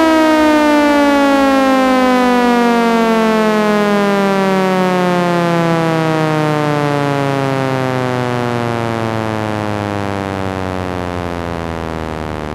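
Belmont B-115 outdoor warning siren winding down after a test, its tone falling steadily in pitch and slowly getting quieter.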